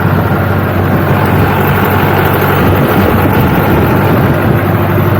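A vehicle engine runs steadily while driving, with a low, even hum under road and wind noise.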